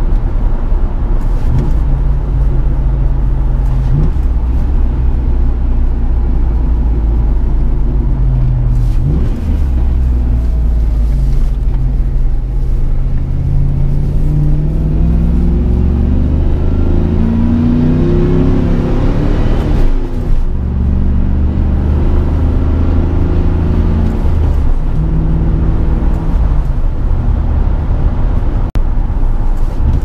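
Chevrolet 4.8-litre V8 pickup engine under way through a five-speed manual: its note climbs steadily under acceleration and drops at gearchanges, most clearly about two-thirds of the way through, then runs at a steady pitch.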